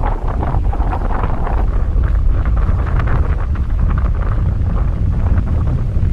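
Strong wind buffeting the microphone: a steady, loud low rumble with gusty rises.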